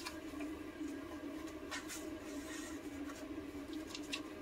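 Pages of a handmade paper junk journal being turned by hand: a few soft, short paper rustles over a faint steady room hum.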